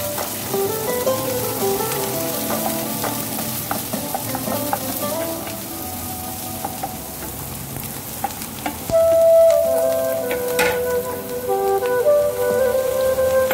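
Chopped onions sizzling in hot coconut oil in a frying pan as they are stirred with a wooden spatula, with instrumental background music playing underneath that grows louder partway through.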